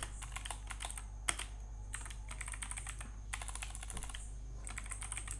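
Typing on a computer keyboard: quick runs of key clicks broken by short pauses, over a faint steady low hum.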